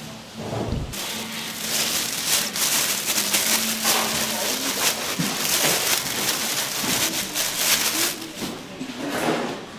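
Food sizzling and crackling in hot frying oil. The sizzle starts suddenly about a second in and dies down near the end.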